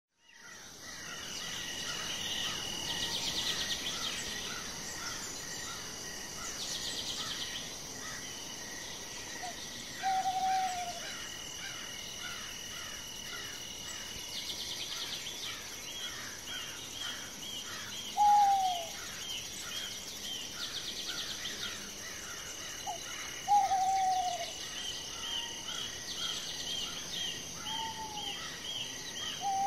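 Forest ambience that fades in: insects trill steadily, with pulsing trains joining every few seconds, and small birds chirp in quick rows. A handful of short, falling hoot-like calls stand out as the loudest sounds.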